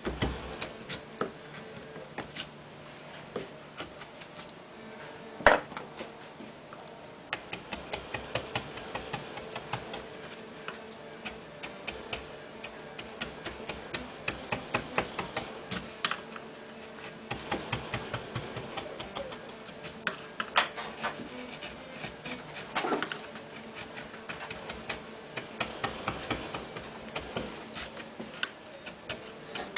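Hand-held carving gouges cutting a relief into a wooden board: quick, irregular runs of short, sharp clicks and scrapes as chips are pared away, with one louder knock about five and a half seconds in. A faint steady hum underneath.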